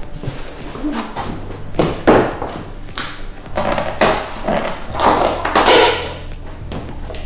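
A plastic squeegee rubbing and scraping over wet paint protection film in a series of irregular strokes, pushing trapped water and bubbles out from under the film.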